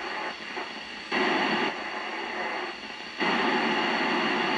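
Static hiss from the Yaesu FT-847 transceiver's receiver, tuned to the ISS downlink with no station heard. The hiss jumps louder for about half a second a second in, then again from about three seconds on.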